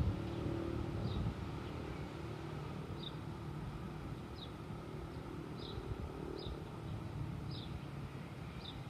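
A small bird chirping over and over, one short high note about once a second, over a steady low rumble.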